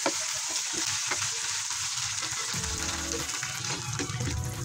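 Chicken pieces in tomato sauce sizzling in a nonstick frying pan, stirred with tongs, with a couple of sharp clicks of the tongs against the pan near the start and about a second in.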